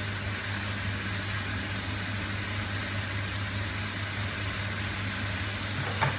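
Meatballs and tomato sauce simmering in a frying pan on a gas hob: a steady hiss over a low hum. A plastic slotted spatula knocks against the pan right at the end.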